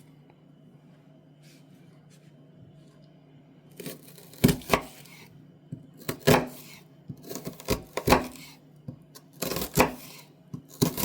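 Chicago Cutlery kitchen knife cutting an onion, a string of sharp cuts and knocks starting about four seconds in, some in quick pairs. Before that only a faint steady low hum.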